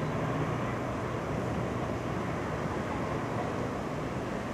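Distant D445 diesel locomotive hauling a regional train through a rail yard: a low engine hum, clearest in the first second, over a steady rushing noise.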